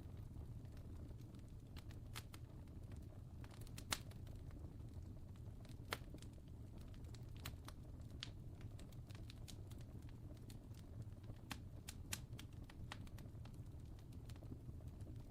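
Wood fire crackling: irregular sharp pops and snaps over a low, steady rumble, the loudest pops about four and six seconds in.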